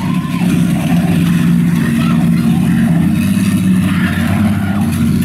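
Diesel engines of racing buses and coaches running on the track, a loud steady low drone.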